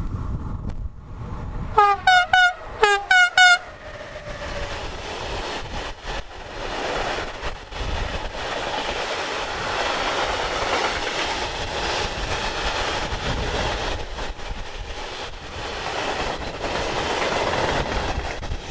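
Siemens Vectron electric locomotive sounding a quick run of about five short horn blasts about two seconds in. A long train of hopper wagons then rolls past with a steady rumble of wheels on the rails.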